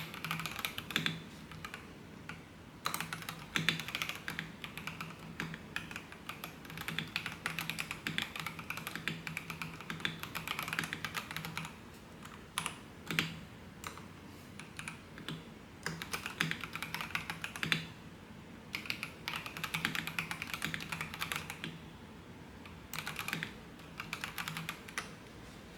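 Typing on an FL Esports FL750 mechanical keyboard: fast runs of key clacks broken by short pauses, stopping near the end.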